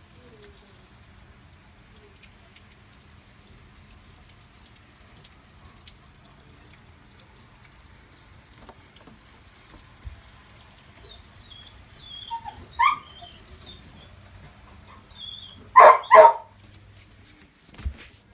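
A dog whining with a few high yips, then barking twice in quick succession, over a low steady hum.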